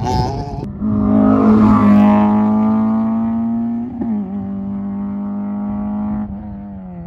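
Rally car engine held at high revs, a steady strong engine note with a brief change in pitch about four seconds in, easing off and quieter near the end. In the first moment, the tail of another rally car driving away is cut off abruptly.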